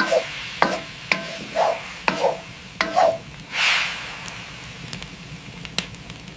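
Utensils clinking and stirring in a dish of food: several short clinks and knocks in the first three seconds, a brief swish a little before four seconds, then a few lighter clicks.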